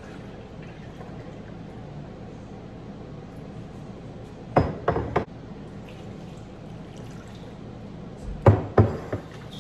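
Kitchen work: two brief clusters of knocks and clinks, about five seconds in and again near the end, over a steady low hum.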